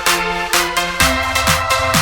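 Electronic dance music with a steady four-on-the-floor beat, about two beats a second; a deeper bass line comes in about a second in.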